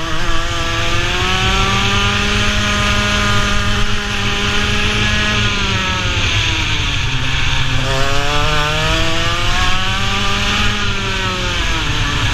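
Racing kart's two-stroke engine heard from on board, its pitch climbing steadily under acceleration for about five seconds, then dropping as the kart slows for a corner. It climbs again from about eight seconds in and falls away near the end.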